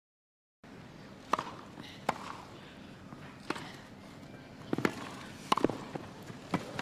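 Tennis ball struck back and forth by rackets and bouncing on a grass court during a rally: a string of sharp pops spaced irregularly about a second apart over quiet court ambience, after a brief silence at the start.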